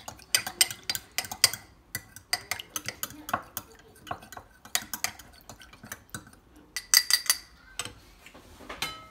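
A metal fork whisking cornstarch and chicken broth into a slurry in a small glass bowl, clinking rapidly and irregularly against the glass. The clinks thin out near the end.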